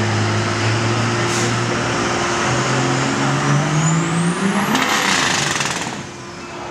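Turbocharged diesel pickup under full load pulling a sled: the engine's revs climb in steps, and about four seconds in a high turbo whistle rises, peaks and falls away. The engine noise drops off sharply about six seconds in, as the pull ends.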